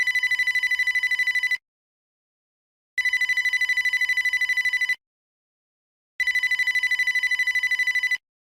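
Old-style electronic telephone ringer sounding a rapid trilling tone in bursts of about two seconds with short silent pauses between them, ringing three times.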